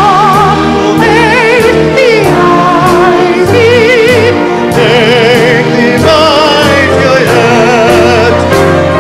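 Operatic-style high voice singing long held notes with a wide vibrato over an orchestral accompaniment.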